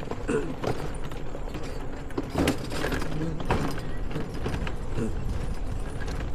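ATV on the move: a steady low rumble of engine and road noise with frequent short knocks and rattles.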